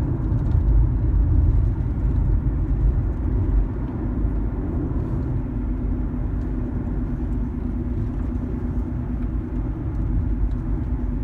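Road noise heard inside a moving car's cabin as it is driven over bumps: a steady low rumble from tyres and suspension, with a faint steady hum joining about halfway through.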